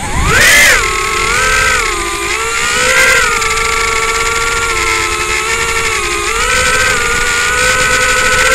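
The brushless motors and propellers of a small FPV quadcopter whine through the onboard micro camera's microphone. The pitch jumps up with a burst of throttle at the start, then holds fairly steady with small dips and rises as the drone flies.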